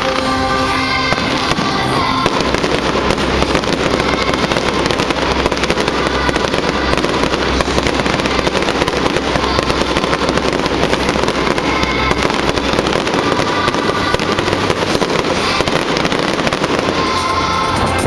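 Fireworks barrage: a dense, continuous run of bangs and crackling. Show music is heard under it at the start, drops away, and comes back near the end.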